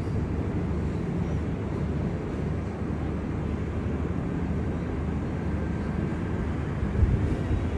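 Steady low, distant rumble of a British Airways Boeing 777-300ER's GE90 jet engines as the airliner moves along the airfield, with a short thump about seven seconds in.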